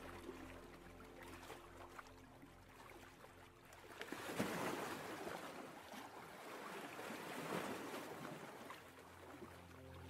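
Ocean waves washing, with a swell that builds about four seconds in and eases off near the end.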